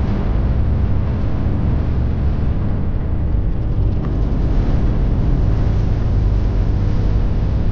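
Steady, loud, low rumble of a vehicle under way, engine and road noise with no distinct events.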